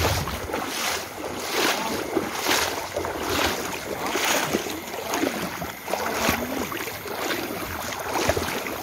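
Footsteps wading through shallow floodwater and wet grass, a slosh and swish roughly once a second.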